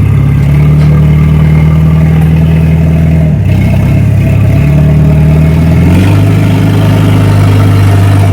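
Forklift engine running hard under the load of a heavy fifth-wheel trailer, its pitch shifting up and down a few times, about half a second, three and a half and six seconds in.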